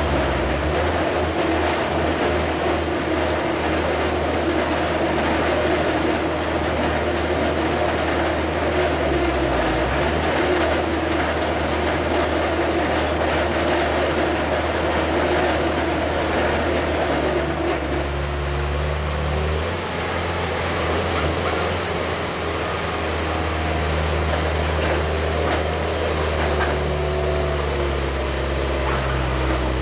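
Highway HHF truck-mounted pressure digger at work, its engine and hydraulic drive running steadily while the drill stem turns in the ground. The engine note shifts about two-thirds of the way in.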